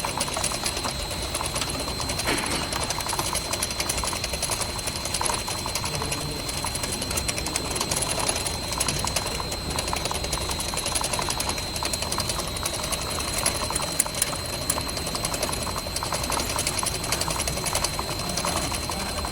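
Machinery running steadily with a fast, even mechanical rattle and a thin high whine, with a few louder knocks.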